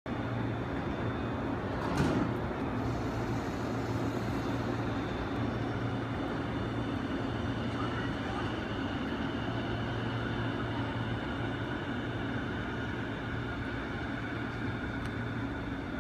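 JR 185 series electric train standing still, its onboard equipment humming steadily, with a single knock about two seconds in.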